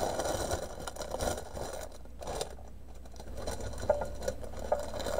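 Plastic packaging crinkling and rustling as hands handle a cross-stitch kit and its bag of embroidery floss, with a few small clicks, over a steady low hum.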